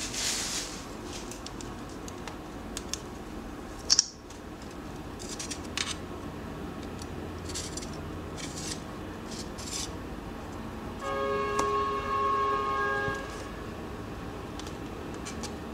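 Handling sounds of a stainless steel digital caliper being worked against a phone's metal body: scattered light clicks and taps as the jaws are slid and set, then a steady ringing scrape lasting about two seconds near the end, over a low steady hiss.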